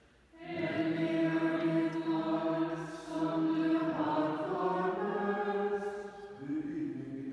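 Voices chanting a liturgical psalm tone for vespers, beginning about half a second in with long held notes that step to a lower pitch near the end.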